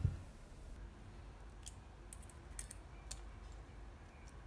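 Faint, scattered metallic clicks of an improvised pick working inside the lock of Peerless 700C chain handcuffs.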